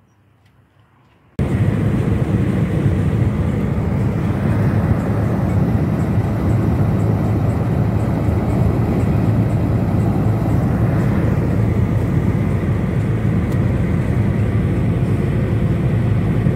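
Steady loud road noise of a car travelling at highway speed, heard from inside the cabin: a deep, even rumble of tyres and wind. It starts abruptly about a second and a half in, after a short quiet stretch.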